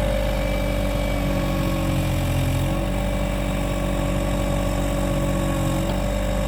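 Cat 303 mini excavator's diesel engine running steadily with a constant whine over its hum; its note changes briefly about two seconds in and again near the end.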